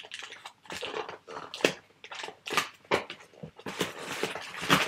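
Packaging being handled and unwrapped, with irregular crinkling and crackling rustles.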